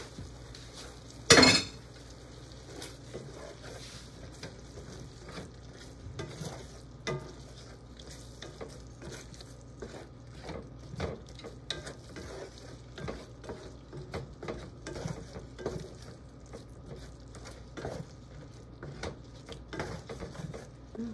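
Wooden spatula stirring and scraping beef slices and minced garlic in sauce in a frying pan, over a steady sizzle, with many small taps and scrapes. A single loud knock about a second and a half in.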